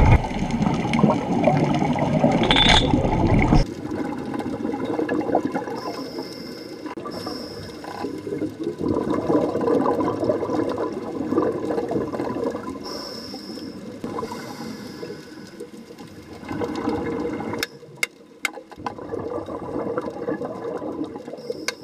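Underwater sound of scuba divers breathing through regulators: gurgling exhaled bubbles with brief hisses at intervals. A few sharp clicks come near the end.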